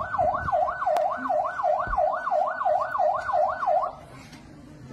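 Electronic yelp siren, one tone sweeping quickly up and down about three times a second, which cuts out about four seconds in.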